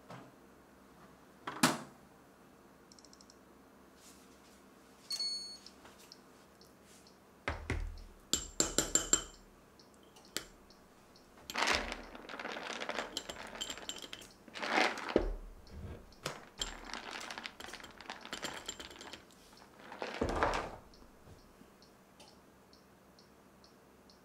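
Kitchen handling sounds. A toaster door shuts with a sharp click, and a short electronic beep follows. Then a metal spoon clinks and scrapes in a small ceramic bowl, in several bouts, as cream cheese and nuts are mixed.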